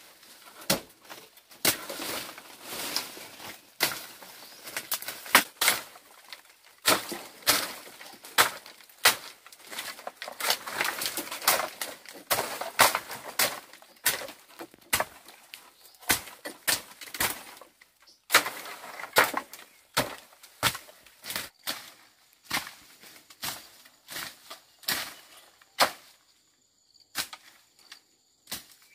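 A hand tool chopping and cutting brush, with irregular sharp strikes about once or twice a second amid the rustle of cut vegetation.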